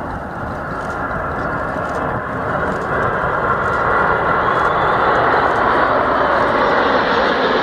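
Jet roar from a formation flypast of the Avro Vulcan XH558 with the Red Arrows' Hawk jets, growing steadily louder as the aircraft approach.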